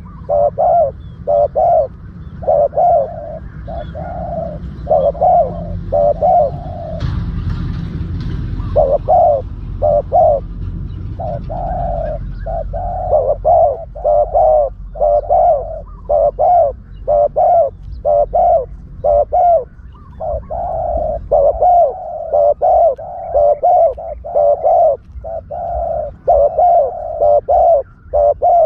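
Spotted doves cooing over and over in quick repeated phrases: a lure call for trapping spotted doves. A low rumble runs under the calls for several seconds about a quarter of the way in.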